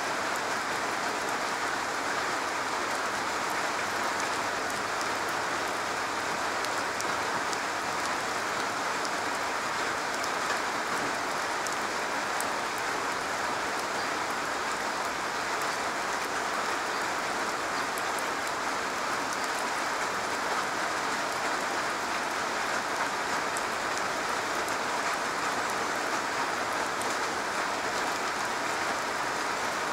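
Steady rain falling on a garage roof: an even hiss of many drops, with fine individual drop ticks scattered through it.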